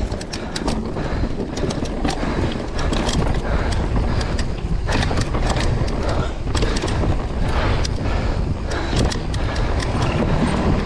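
Mountain bike riding fast down a dirt trail, heard from a camera on the rider: a steady rumble of wind and tyres with frequent rattles and clicks from the bike over bumps. The tyres cross a wooden boardwalk near the start.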